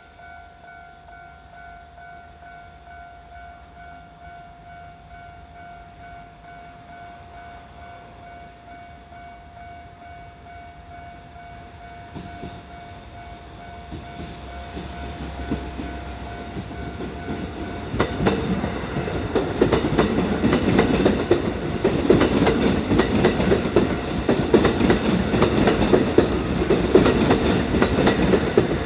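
Japanese level-crossing alarm ringing with a steady, repeating electronic ding. About halfway through, a Kintetsu 8600-series and 8810-series electric train is heard approaching, growing louder. It then passes close by with loud, rapid clattering of wheels over the rail joints, which drowns out the alarm.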